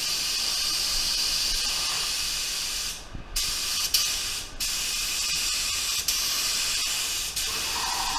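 Tuba TR300 HVLP gravity-feed spray gun spraying paint: a loud, even hiss of air and atomised paint. It cuts off briefly twice, about three seconds and four and a half seconds in, as the trigger is let go between passes, and a faint steady tone joins near the end.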